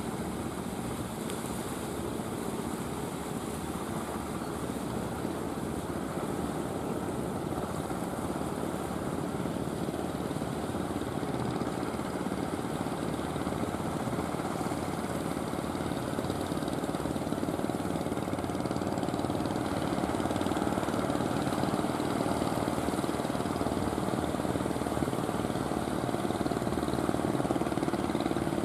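A wooden fishing boat's engine running steadily, growing gradually louder as the boat comes closer.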